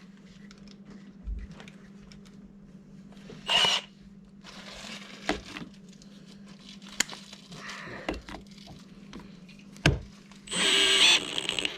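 Power drill driving a screw into a boat's fibreglass deck in short bursts, the longest and loudest burst near the end, with a few sharp clicks between them and a steady low hum underneath.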